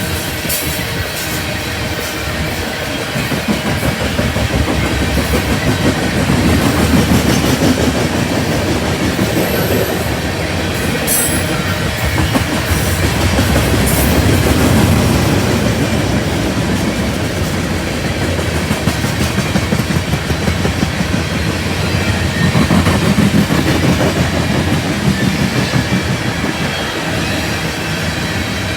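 A freight train's cars rolling past, wheels clicking and clattering steadily over the rail joints.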